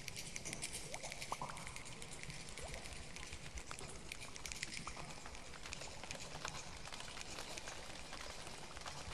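A choir's body percussion imitating rain: many hands snapping, patting and rubbing together to make a faint, dense pattering, with a few short faint whistles over it.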